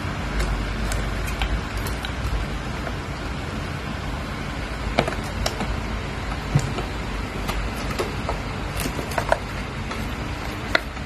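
Light, scattered scratches and taps of a cat's claws and paws on a corrugated cardboard scratcher, over a steady background hiss and hum.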